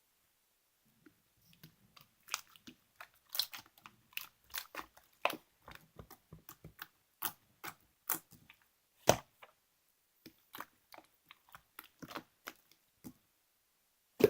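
Clear slime being squeezed and poked by hand, making irregular sticky clicks and pops after a moment of quiet.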